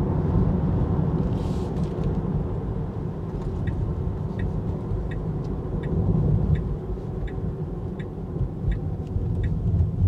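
Road and tyre rumble inside the cabin of an electric Tesla Model 3 as it drives and slows. About a third of the way in, a light, regular tick starts and repeats about every three quarters of a second.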